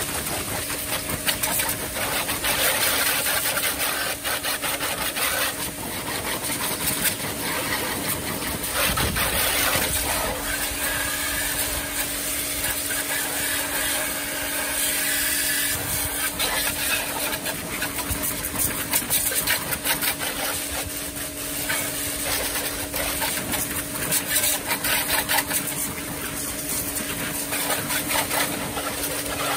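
Yamasu mini pressure washer running, its pump giving a steady hum under the hiss of the water jet spraying onto the motorbike, the hiss swelling and fading as the spray moves.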